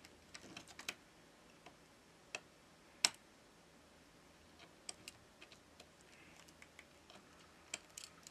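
Faint, scattered small clicks of a plastic spudger prying the press-fit flex-cable connectors off a Samsung Galaxy S20 Ultra's board, with the sharpest click about three seconds in.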